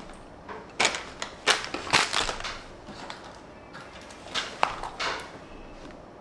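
A Tomica die-cast toy car being handled: a scatter of small clicks, taps and rustles, bunched about a second in, around two seconds in, and again near the five-second mark.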